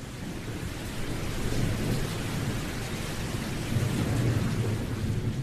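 Steady hiss of heavy rain with low rumbles of thunder, which swell about a second and a half in and again about four seconds in.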